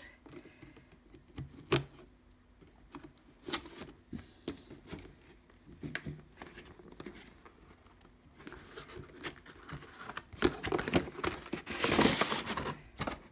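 Scissors snipping the tape on a cardboard doll box, with scattered clicks and taps as the box is handled. Near the end comes a longer stretch of rustling and tearing cardboard as the taped flap is opened.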